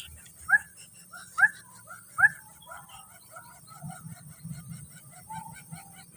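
Bird calls: three loud, short, rising squeaky calls in the first half, followed by a run of softer short chirps repeated about four times a second.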